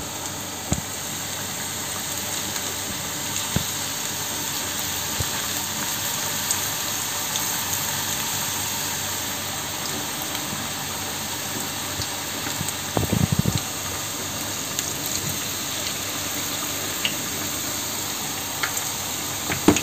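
Banana-batter fritters frying in hot oil in a pan, a steady sizzle, with a few light clicks and a short rough louder patch about two-thirds of the way through.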